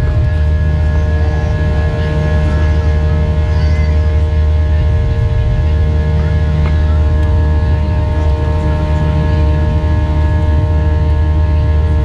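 Airbus A320's IAE V2500 engines heard from inside the passenger cabin: a loud, steady, low drone with a set of steady buzzing tones over it.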